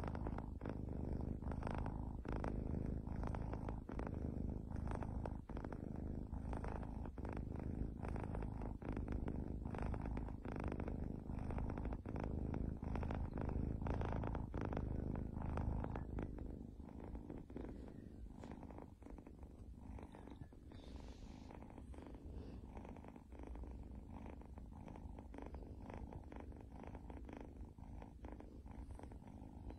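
Kitten purring close to the microphone: a steady, rapid rumble that drops to a quieter purr about halfway through.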